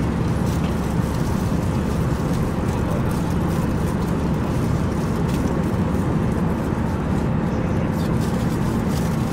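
Steady cabin noise of a jet airliner in flight: a constant low roar of engines and airflow that does not change.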